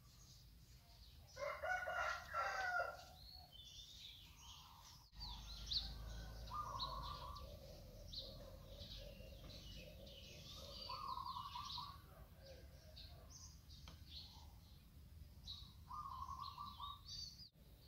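Background birdsong: small birds chirping throughout, with a rooster crowing once, the loudest sound, about a second and a half in. The sound drops out for an instant twice, at edits.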